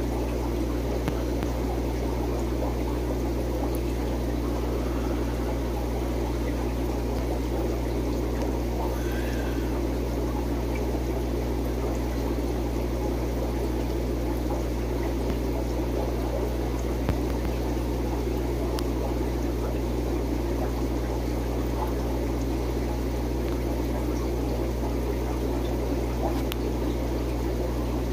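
Aquarium filter running: a steady low hum with trickling water.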